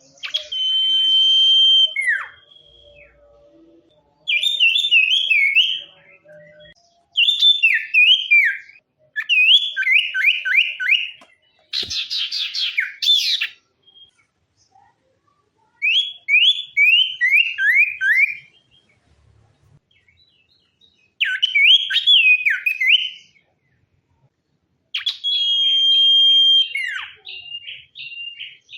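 Sirtu songbird singing: loud whistled phrases of about two seconds each, with short pauses between them. Most phrases are quick runs of falling slurred notes, some hold a steady whistle, and one harsher, buzzier phrase comes about twelve seconds in.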